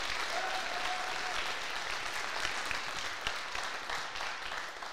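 Audience applauding, a crowd clapping steadily, with a held cheer above it for about the first second; the applause thins out near the end.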